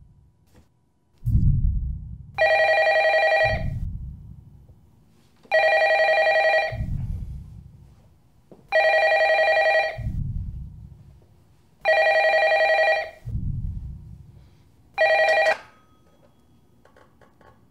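A landline desk telephone rings five times, each ring about a second long and about three seconds apart. The last ring is cut short as the handset is picked up, followed by a few small clicks. Between the rings come deep, low booms that each fade away.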